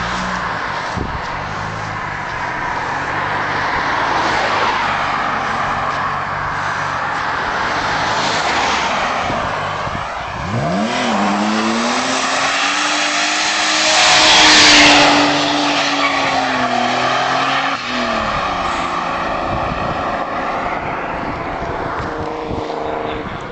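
Ford Consul Coupe's turbocharged 2.9-litre V6 running, then revving up sharply about ten seconds in and held at high revs for some seven seconds, loudest about halfway through, before the revs drop back.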